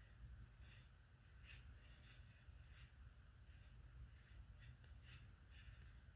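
Harbor Breeze Marco Island ceiling fan running faintly with a low hum and light, uneven scratchy ticks every half second or so, the sound of its bad bearings.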